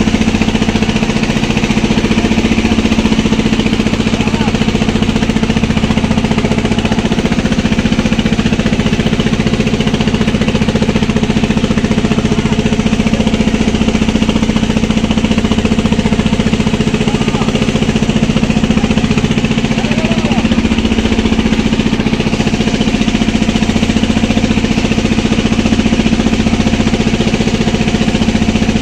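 Fishing boat's engine running steadily as the boat moves under way, a constant loud drone.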